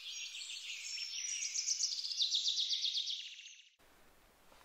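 A songbird singing a quick run of high chirps that turns into a rapid trill, then stops abruptly.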